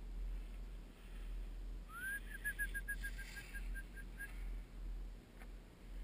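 A clear whistled call: a short rising note about two seconds in, then about a dozen quick short notes at one pitch, drifting slightly lower, over about two seconds.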